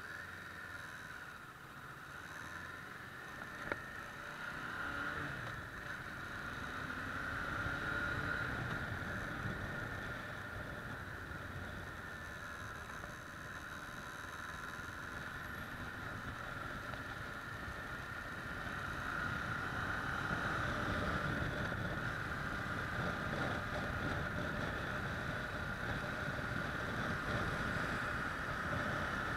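Kawasaki ER-6f's 649 cc parallel-twin engine with wind and road noise, heard from an action camera on the moving bike. The engine rises in pitch as it pulls away and accelerates, eases, then grows louder again later; a single sharp click comes a little under four seconds in.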